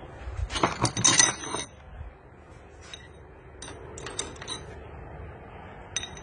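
Steel pushrods clinking and tapping against a Cummins 24-valve cylinder head as they are dropped into their bores: a quick run of clinks about a second in, then scattered single metallic clicks.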